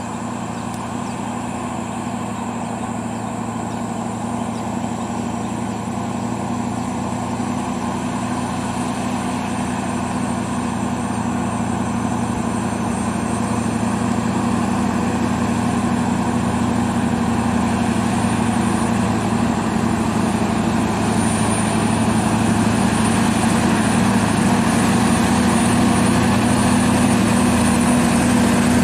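Scania R580 truck's V8 diesel engine running steadily, growing gradually louder.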